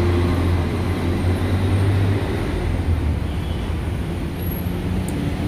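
Street traffic noise, with a steady low engine hum in the first two seconds or so that then fades.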